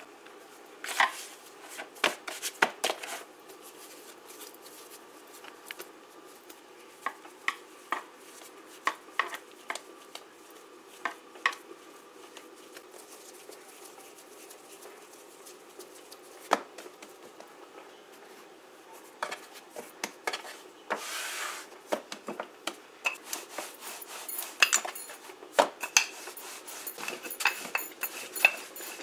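Hands working a ball of roti dough on a wooden cutting board: scattered soft knocks and taps. The taps grow busier toward the end, when a wooden rolling pin rolls the dough out on the board.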